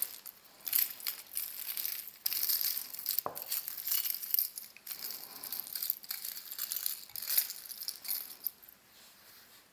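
A pile of metal jewelry (chains, earrings and bead necklaces) clinking and rattling irregularly as hands rummage through it, with one sharper knock about three seconds in; the jingling dies down near the end.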